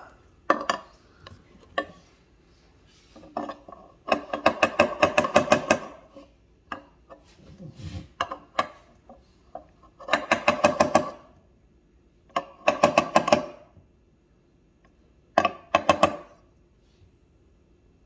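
Small brass-headed hammer tapping a pocket-knife blade down in the clamp of an electric chainsaw sharpener, to set its depth for cutting a nail nick. Light metallic taps come in several quick runs with pauses between, the longest run about four seconds in.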